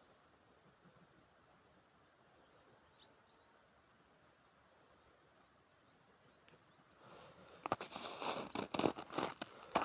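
Quiet outdoor ambience with a few faint, short bird chirps; about seven seconds in, a run of loud, irregular crunching and rustling sounds starts close by.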